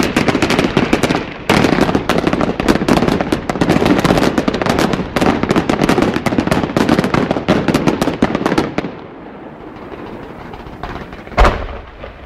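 Fireworks display: a dense, rapid barrage of cracks and bangs, with a brief gap about a second and a half in, dying down about nine seconds in; a single loud bang follows near the end.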